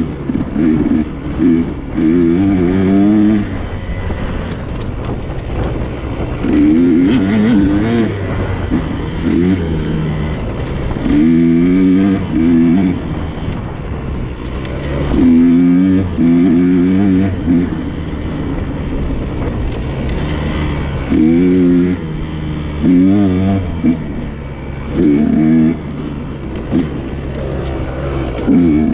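Dirt bike engine running under way, its revs rising in short bursts of throttle every few seconds between steadier stretches.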